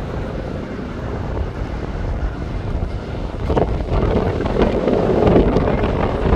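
Wind buffeting the microphone over the low rumble of jet aircraft at an airport, swelling louder from about three and a half seconds in.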